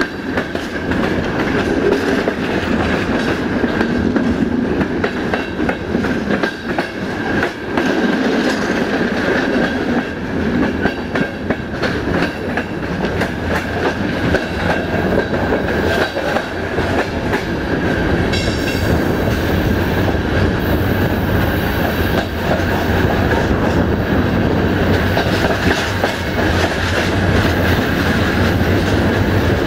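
Passenger train running along the line, heard from on board: the wheels clatter over the rail joints above a steady rumble and a constant high tone. The low rumble grows stronger in the second half.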